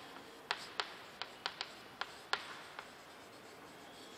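Chalk writing on a chalkboard: a run of sharp, irregular taps and short scratches as letters are written, ending about three seconds in.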